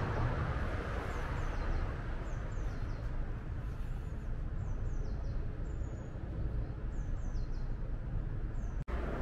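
Steady low mechanical hum from a box truck at a standstill, its tail lift raised. A small bird repeats short, high, falling chirps over it. The sound cuts out for an instant near the end.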